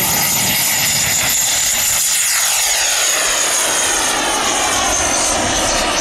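Radio-controlled model jet making a fast pass, a loud high-pitched whine whose pitch drops from about two seconds in as it goes by.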